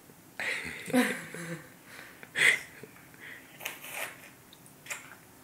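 A young child's breathy mouth noises and short voiced sounds in several separate bursts, a reaction to the sour taste of a Warhead candy; the loudest is a brief sharp burst about halfway through.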